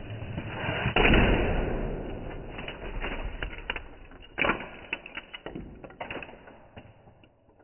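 Lego Technic Ford GT model rolling fast across a tile floor and slamming into a wooden board about a second in, breaking apart. Loose plastic bricks then clatter and skitter across the tiles, with another sharp knock after about four seconds, the clicks thinning out until it goes quiet.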